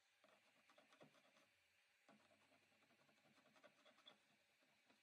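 Near silence, with faint, scattered scratchy ticks.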